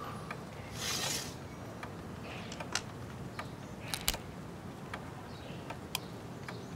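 A vinyl record being handled and set on a turntable: a brief soft swish of the disc sliding, then scattered light clicks and knocks of the record and turntable being handled.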